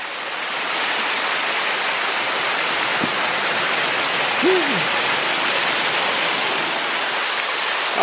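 Small waterfall cascading down a rock face into a pool, a steady rush of falling water. A short low pitched sound rises briefly above it a little past halfway.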